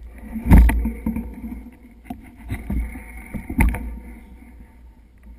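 Close knocks and thumps of handling noise on the camera's microphone, two loud ones about half a second in and about three and a half seconds in with smaller knocks between, over a steady low wind rumble.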